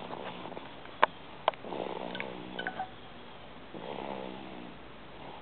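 Snoring: two snores about a second long each, roughly two seconds apart. Two sharp clicks come about a second in, before the first snore.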